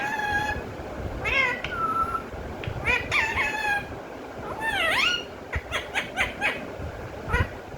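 Pet parrot calling: a string of pitched, gliding calls, then several short sharp calls in quick succession later on.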